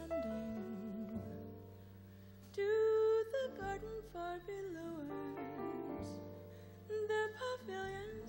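Jazz ensemble playing a slow ballad: a sustained melody line with vibrato over piano chords and double bass notes that change every few seconds.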